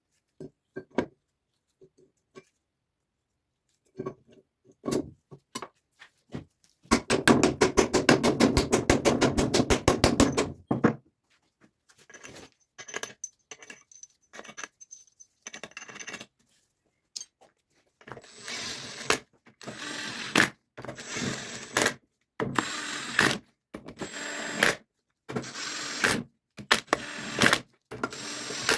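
Hand-tool work on metal parts: scattered clicks and knocks, then a rapid run of even clicking for about three and a half seconds. After that come repeated scraping strokes, each under a second, about once a second.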